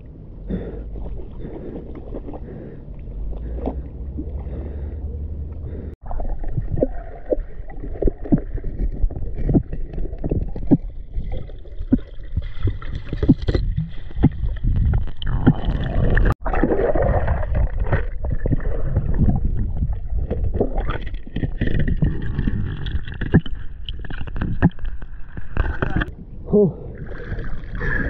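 Water sloshing and bubbling against a diver's action camera, muffled, with many small knocks and pops from handling and moving through the water. The sound cuts out abruptly twice.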